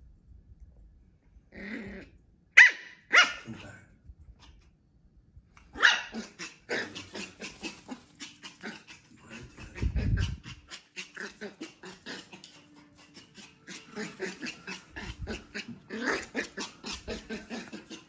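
Yorkshire terrier puppy barking and growling in play: two sharp barks about two and a half seconds in, then a long stretch of quick, even ticking sounds, with a low thump about ten seconds in.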